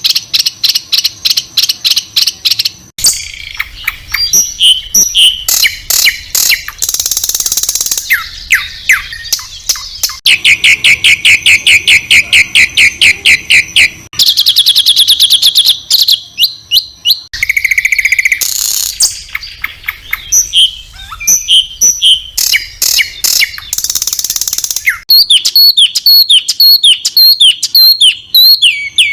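Songbird calls of the harsh, high-pitched rapid kind called 'tembakan kasar', used as masteran for training competition birds. Fast strings of sharp repeated notes and trills switch abruptly to a different call every few seconds, ending in a run of falling whistled notes.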